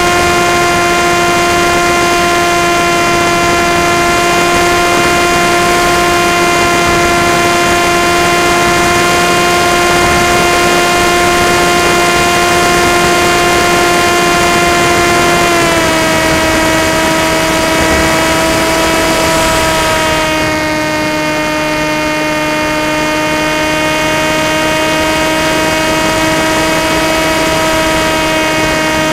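Onboard sound of an FPV model plane in flight: the motor and propeller give a steady whine over a rush of wind. The pitch steps down a little about halfway through as the throttle eases, and a few seconds later the hiss thins and the sound gets a little quieter.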